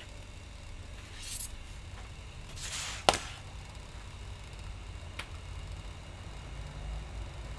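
Laptop LCD panel parts being handled on a metal workbench: two brief scraping rustles, then a single sharp click about three seconds in and a faint tick a couple of seconds later, over a low steady hum.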